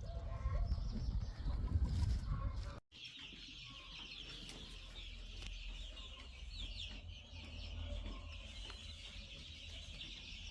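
Domestic chickens: for about three seconds, clucking calls over heavy low rumble. Then, after a sudden cut, a steady high-pitched chorus of chicks peeping over a low hum.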